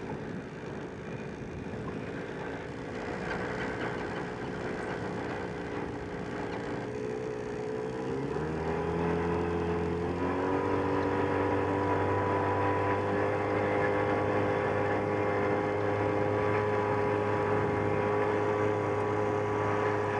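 Small outboard motor on an open boat running, its pitch stepping up about eight seconds in and again about two seconds later as it is throttled up, then running steady at speed.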